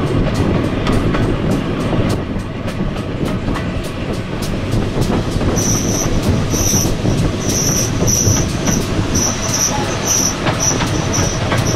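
Passenger carriage of a steam-hauled heritage train heard from an open window while running: a steady wheel-on-rail rumble with quick, even ticks. From about halfway in, the wheel flanges squeal on and off, high-pitched, against the rails.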